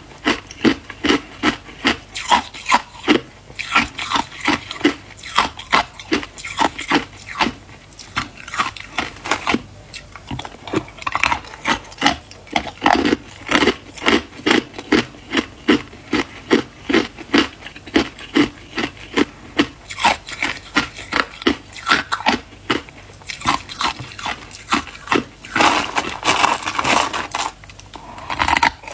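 Crushed hard ice being chewed with the mouth close to the microphone: a steady run of crisp crunches, about two to three a second, with a denser spell of crackling near the end as more ice goes in.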